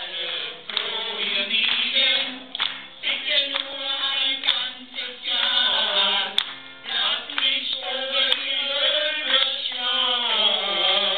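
A group of voices singing a song together, with musical backing.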